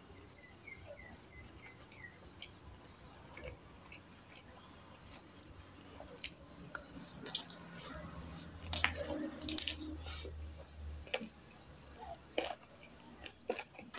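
Close-up chewing and biting on a curry-covered chicken leg: wet mouth smacks and sharp clicks, busiest about halfway through.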